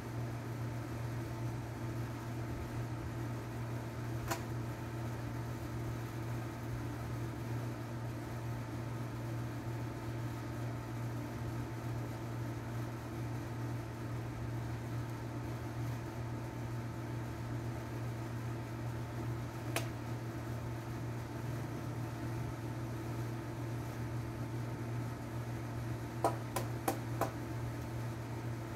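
A steady machine hum, with a single sharp click about four seconds in, another about twenty seconds in, and a quick run of four or five clicks near the end.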